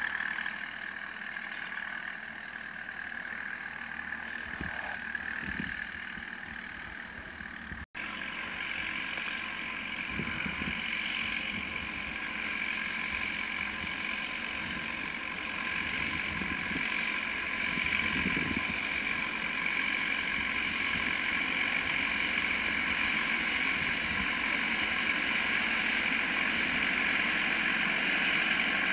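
Farm tractor engine running steadily in the field, growing louder as the tractor drives closer. The sound drops out for an instant about eight seconds in.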